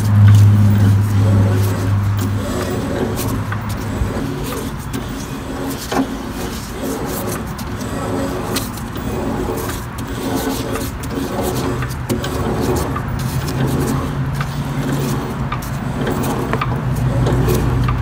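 An engine or motor running steadily with a low hum, pulsing slightly, its pitch stepping a little higher in the second half.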